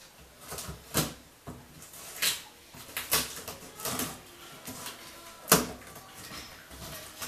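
Scissors cutting through packing tape along the seam of a cardboard box: a series of irregular snips and scrapes, the loudest about five and a half seconds in.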